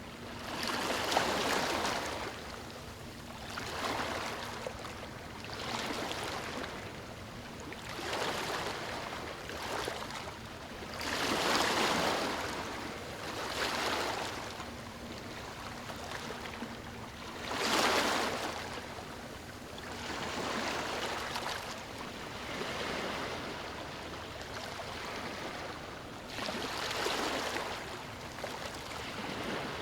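Small waves breaking and washing up a beach, one swell of surf every few seconds, with a few bigger breakers among them.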